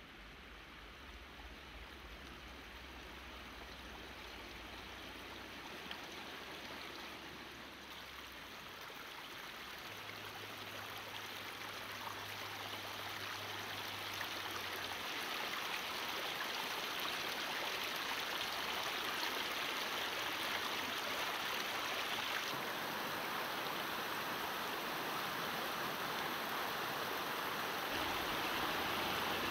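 River water running over rocks, a steady rushing that grows gradually louder throughout.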